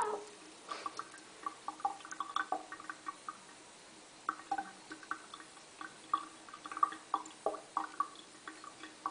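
Water dripping and splashing in small, irregular drops, over a faint steady hum.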